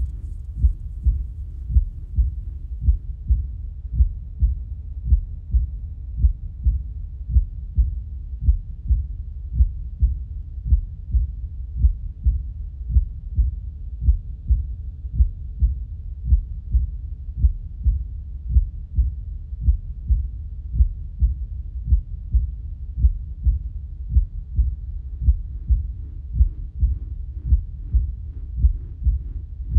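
A steady low pulse of thuds, about one and a half a second, over a low hum, like a slow heartbeat; part of the film's sound design.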